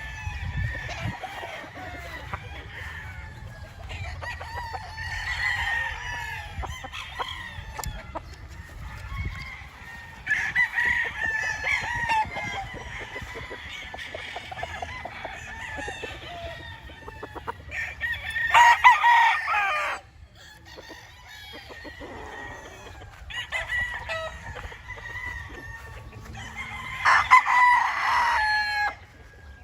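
Several roosters crowing again and again, overlapping one another over a constant chatter of other chicken calls. The loudest crows come about a third of the way in, again about two-thirds through, and near the end.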